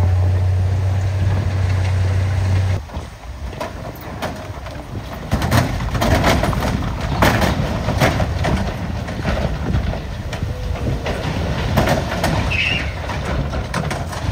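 Dump truck engine running steadily with a low hum while the tipper bed is raised, dropping off about three seconds in. Then rock and earth slide out of the tipped bed with a run of irregular clattering knocks and thuds.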